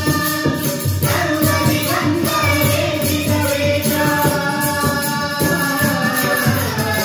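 Devotional bhajan music: voices singing over held instrumental tones, with a steady percussion beat.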